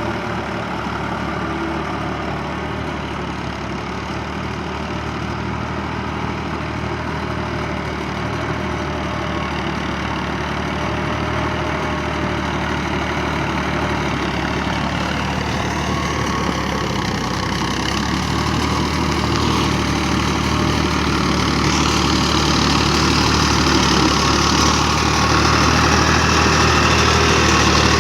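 Farm tractor's diesel engine running steadily, growing louder through the second half.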